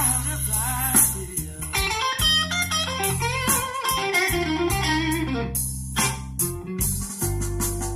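Guitar-driven music with strong bass notes, played through a car stereo with a Kenwood KDC-100U head unit and an Art Nouveau AN4.400 amplifier, heard inside the car's cabin.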